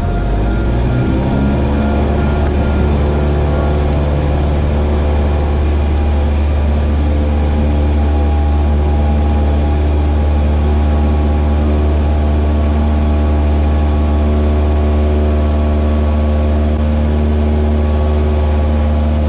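Cessna 172R's four-cylinder Lycoming engine and propeller heard from inside the cabin, rising in pitch over the first second or two as takeoff power comes in on a touch-and-go, then running steady and loud through the liftoff and climb.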